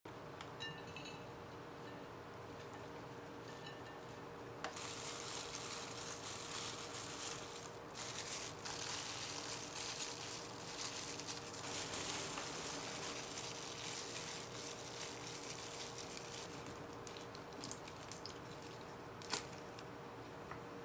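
After a few quiet seconds, crinkly rustling of a disposable plastic glove and plastic packaging as salmon and salad vegetables are handled in a bowl. Near the end come a few sharp taps of a knife on a wooden cutting board as black olives are sliced.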